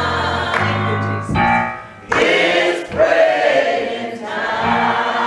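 Gospel choir singing, with a short break between phrases about two seconds in.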